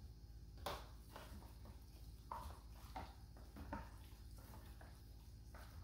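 Faint handling noises: a short clatter under a second in as a whisk and knife are laid on the cutting board, then a few soft knocks as gloved hands mix cubed steak in its marinade in a plastic container.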